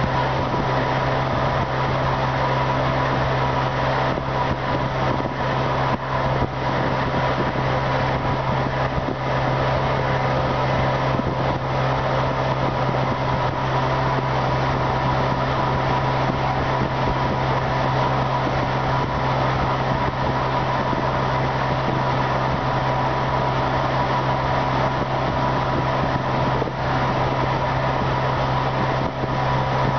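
Pontoon boat's outboard motor running steadily while underway, a constant low drone.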